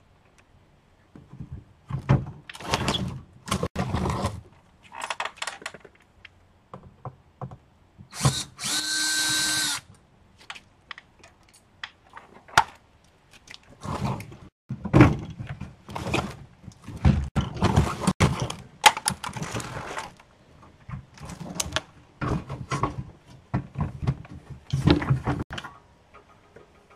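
Dishwasher being taken apart: repeated bursts of clattering and thunks as metal and plastic parts are worked loose, with a power tool such as a drill running steadily once for about a second and a half, about eight seconds in.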